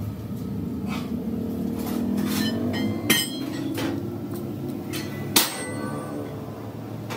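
Sharp metallic knocks with a short ring, one about three seconds in and a louder one about five and a half seconds in, with fainter taps between them, over a steady low mechanical hum.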